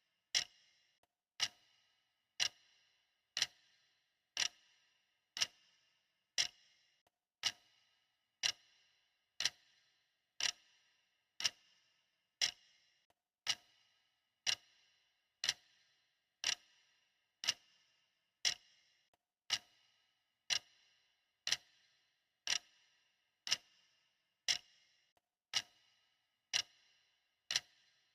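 Clock ticking steadily at one tick a second, an even tick-tock with every other tick slightly stronger and each tick leaving a short ringing tail.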